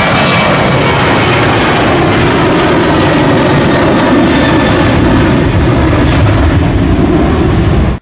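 Boeing 737 airliner's twin jet engines at takeoff thrust through the takeoff roll and lift-off: a loud, steady roar. A thin high whine sits on top of it at first and fades after about two seconds.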